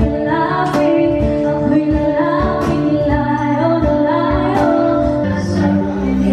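Background pop music with a female vocal singing over a steady beat.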